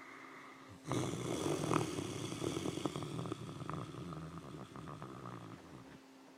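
Sleeping Great Dane snoring: one long, crackly snore that starts abruptly about a second in and slowly fades away.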